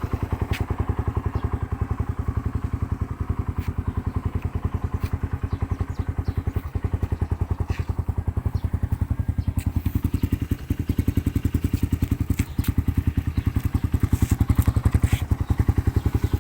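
Suzuki Raider 150 single-cylinder four-stroke engine idling through its Apido exhaust, a fast, even train of exhaust pulses that gets a little louder near the end.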